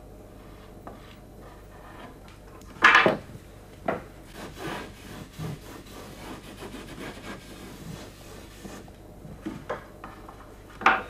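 Scratchy rubbing strokes of painting on a canvas held on a wooden easel: a loud stroke about three seconds in, a run of shorter strokes after it, lighter scattered ones, and another loud stroke near the end.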